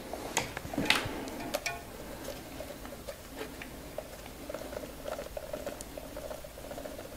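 Grasmaster electrostatic grass applicator being shaken to sift static grass fibres through its sieve, a light, quick, irregular pattering rattle. A few sharp clicks of handling come in the first two seconds, and the rattle grows busier from about halfway on.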